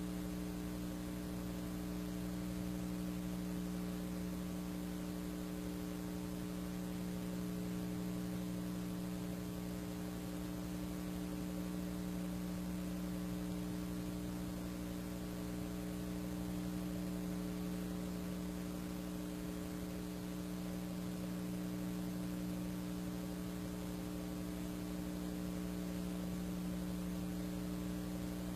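Steady electrical mains hum, unchanging throughout, over a faint hiss.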